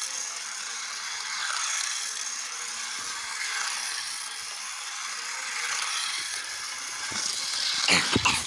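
Toy metro train running on its track: its small motor makes a steady whir. About eight seconds in there is a brief clatter of knocks.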